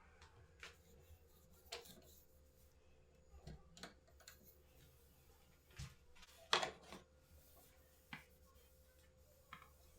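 Quiet room tone with a faint steady hum and scattered light clicks and knocks, the loudest about two-thirds of the way through.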